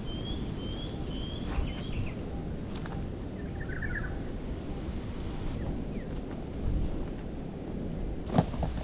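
Outdoor ambience: steady low wind rumble on the microphone, with a bird's short repeated chirps in the first two seconds and a brief twitter about four seconds in.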